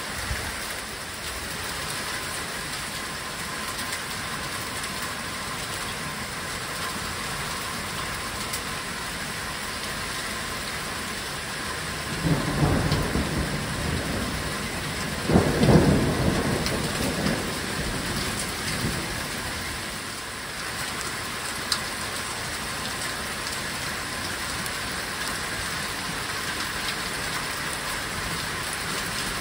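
Heavy rain pouring steadily, with thunder rumbling twice close together around the middle, the second roll the louder. A single sharp tap comes about two-thirds of the way through.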